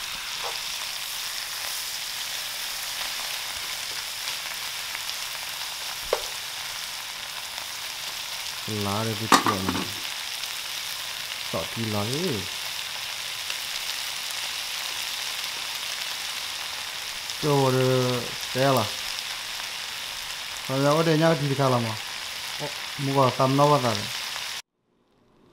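Fern fiddleheads frying in hot oil in a nonstick pan, a steady sizzle as they are stirred. The sizzle cuts off suddenly near the end.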